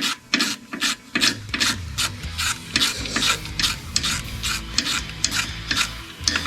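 Quick, repeated rasping strokes of hand-tool work on an engine, several a second and uneven in rhythm, with background music coming in about halfway through.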